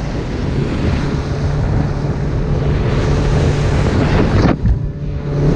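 Boat engine running with a steady hum under loud wind noise on the microphone and water noise. The wind noise cuts off suddenly about four and a half seconds in, leaving the engine hum.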